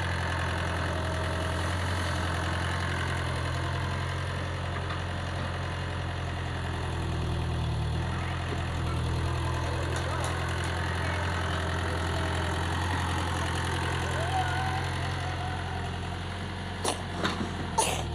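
Komatsu mini excavator's diesel engine running steadily at a low, even speed, with a few sharp knocks near the end.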